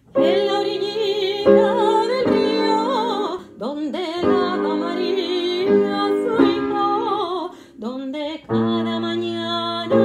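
A woman singing in an operatic style with wide vibrato over held piano chords. The phrases break briefly twice, about three and a half and eight seconds in.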